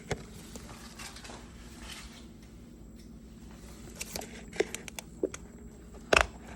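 Light handling noises: soft rustles and a few scattered clicks, with a sharper click near the end, against a low steady room hum.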